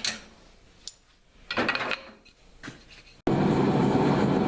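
A few light metallic clinks of steel lag bolts being handled, then, after a sudden cut about three seconds in, a blacksmith's forge running with a loud, steady rushing noise.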